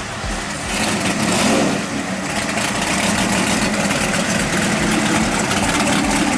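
Gasoline pickup truck engine running loud and steady.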